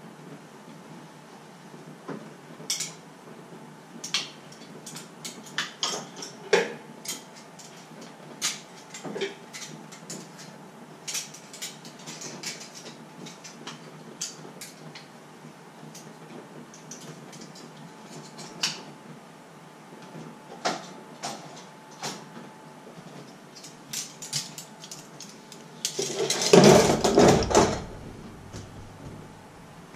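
Dishes and cutlery clinking and knocking every second or so as they are handled and dried with a tea towel. Near the end comes a louder two-second burst of close handling noise.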